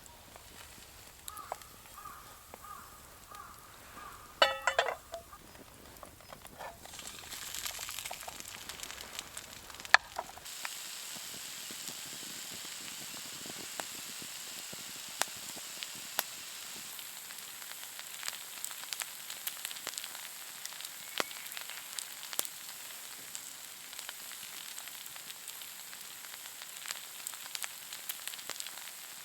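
Food sizzling in a pan over a fire: a steady frying hiss with scattered crackles, setting in about a third of the way through, after a quieter stretch with a few short pitched notes and one brief louder sound.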